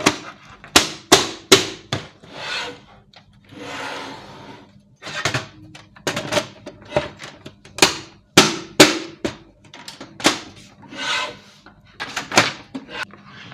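Plastic parts of a laser printer being handled and fitted back together: irregular sharp clicks and knocks, with a few longer sliding rubs in between.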